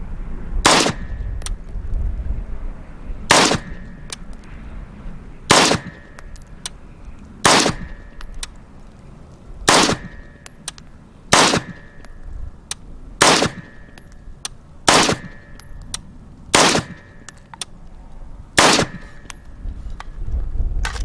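AR-15 rifle firing 5.56 NATO rounds, ten single shots at a slow, deliberate pace, about two seconds apart.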